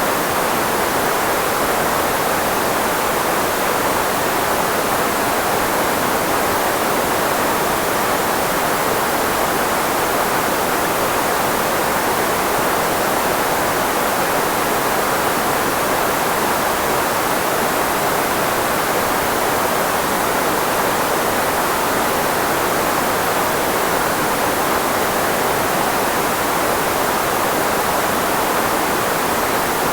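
Steady filtered white noise, shaped to cover the frequencies of human speech, strongest in the middle range of the voice. It runs constant with no changes.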